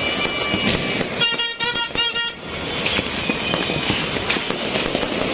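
Aerial fireworks crackling and popping against a continuous din. A horn sounds about five short toots in quick succession about a second in, and a thinner high steady tone comes in twice.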